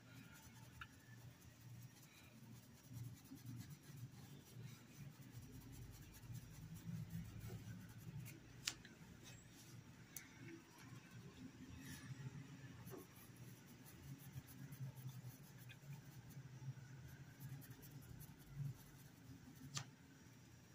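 Faint scratching of a paintbrush working fabric paint into a cotton dish towel, with a few light clicks.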